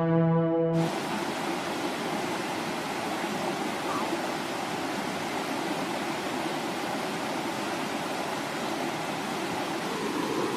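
Steady rushing of flowing river water, after the tail of intro music cuts off under a second in.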